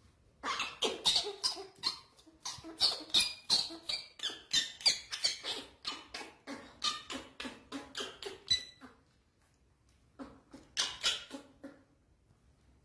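Baby macaque crying in distress: a rapid run of short, shrill squeals, about three a second, then a pause and a shorter second run near the end.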